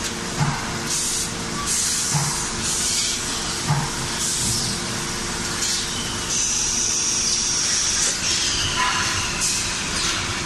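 Automated gas-tank production line machinery running: short hisses of compressed air every second or two from its pneumatic actuators, one longer hiss with a high whistle from about six to eight seconds in, low thuds, and a steady hum underneath.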